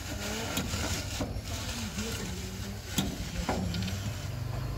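Wire being wound by hand around a grey pipe used as a mandrel to form a coil spring: a continuous scraping, rasping sound of wire sliding on the pipe, with two sharp clicks about three seconds in.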